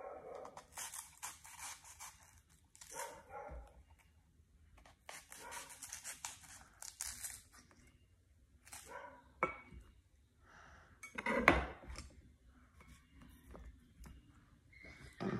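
Small knife peeling the skin off a green fruit: runs of short scraping, shaving strokes, with a sharp click past the middle and a louder knock a little later as things are handled and set down.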